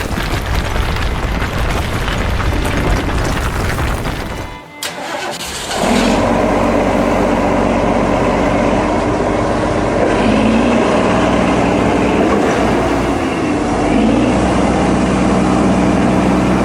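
Engine sound effect of a cartoon construction vehicle running over background music. The sound drops out briefly about five seconds in, then comes back as a steadier running drone.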